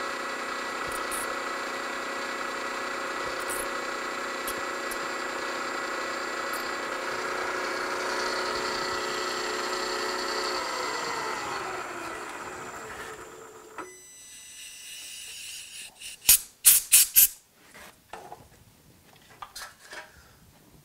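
Mill spindle running with a small drill bit in a wobble steam engine cylinder, then switched off about ten seconds in, its whine falling in pitch as it winds down to a stop. A few seconds later, a quick run of five sharp clicks.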